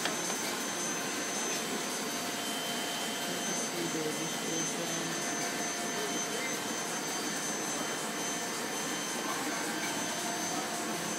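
Heidelberg SORMZ sheet-fed offset press running, a steady machine whir with a faint high whine held throughout.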